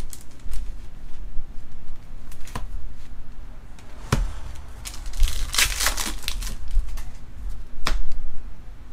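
Trading cards being handled: sharp clicks and taps as cards are flicked and set down, with a short rustle of cards and wrapper about halfway through.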